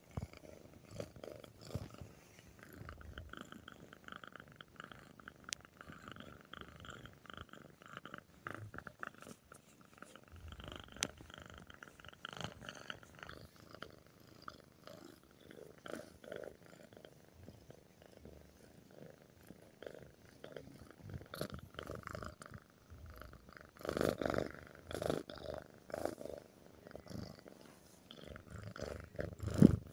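Tabby cat purring while its head is scratched, a pulsing purr that swells louder in stretches late on.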